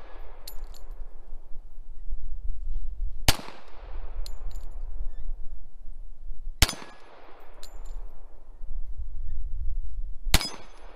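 Three single shots from a semi-automatic pistol, spaced about three and a half seconds apart, each with a short echoing tail. After each shot, light metallic clinks follow within about a second, typical of the ejected brass casing landing on the gravel.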